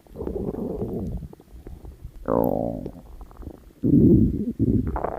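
Stomach growling: a series of separate gurgling rumbles. One about two seconds in slides down in pitch, and the loudest comes about four seconds in.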